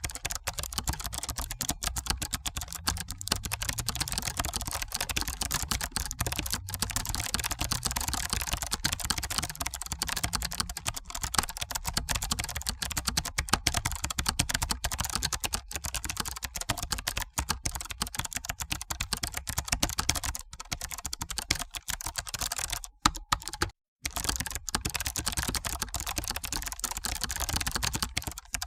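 Continuous typing on a computer keyboard: a dense, irregular stream of key clicks, several a second, broken by one brief pause of about a second a few seconds before the end.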